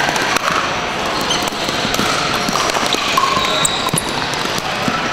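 Steady din of a large sports hall full of pickleball games: frequent sharp pops of paddles hitting plastic balls on the surrounding courts, over a murmur of distant voices, with a few short squeaks.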